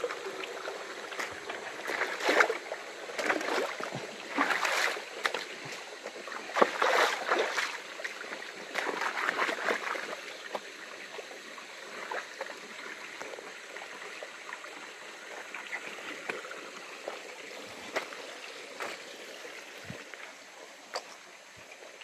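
A small forest stream trickling steadily. For the first ten seconds or so it is overlaid by irregular rustling and crunching of footsteps through leaf litter and brush.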